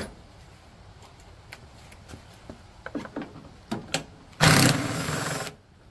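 Cordless power driver with a socket spinning a 10 mm bolt out of a snowblower's belt cover, running for about a second near the end after a few light taps of the socket being set on the bolt.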